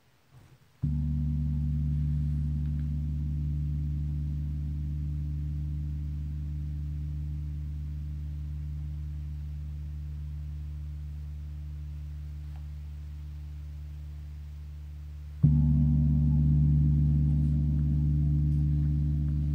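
Meinl Eight Corners of Heaven mirror gong struck softly near the centre with a large felt mallet about a second in, ringing with a deep, rich bass tone that slowly fades. It is struck again, a little louder, about fifteen seconds in, and rings on.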